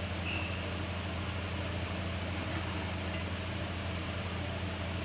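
Steady low hum of a running kitchen fan. A faint, short, high ring near the start comes from the metal serving spoon touching the pan.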